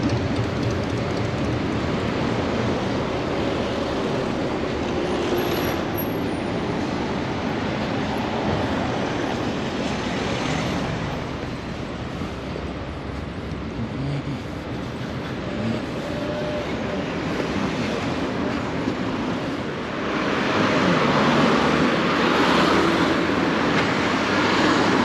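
City street traffic, a steady rumble of passing vehicles, with one vehicle passing louder from about two-thirds of the way in.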